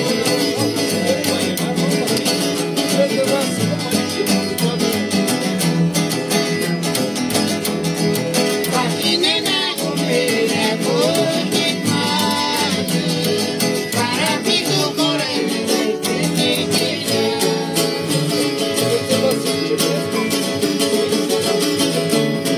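Acoustic guitars and an upright bass playing a tune together, the guitars strummed and plucked over a plucked bass line.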